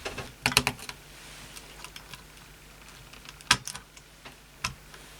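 Clicks and taps of a chipset heatsink with its small fan being fitted back onto a motherboard: a quick cluster of clicks in the first second, then single sharp clicks about 3.5 s and 4.6 s in as it is pressed into its mounting.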